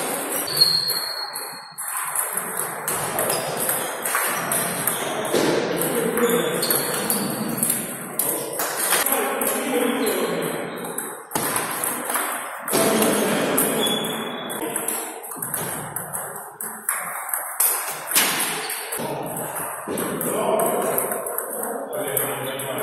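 Table tennis balls clicking off bats and tables in quick back-and-forth rallies, from this table and the others around it, echoing in a large sports hall, with players' voices in the background.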